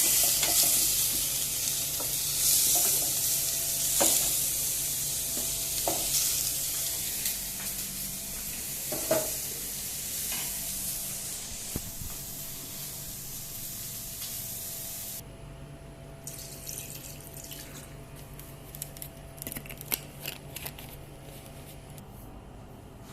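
Food sizzling in a cooking pan, a steady hiss that slowly dies down and cuts off suddenly about fifteen seconds in. A few light clicks and knocks of utensils follow.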